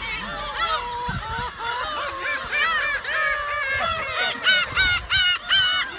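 A large flock of black-tailed gulls calling over one another as they crowd in to be fed, many overlapping calls at once, growing denser and louder in the second half.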